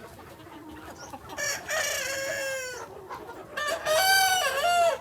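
Rooster crowing twice: a long crow about a second and a half in, then a louder one near the end, with faint clucking of chickens between and around the crows.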